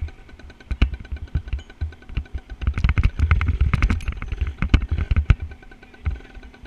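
Dirt bike running, heard through a helmet-mounted camera, with many sharp knocks and rattles throughout.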